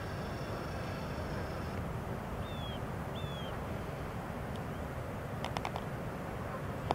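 Steady low outdoor rumble, with a bird chirping twice about two and a half and three seconds in, and a few faint clicks about five and a half seconds in.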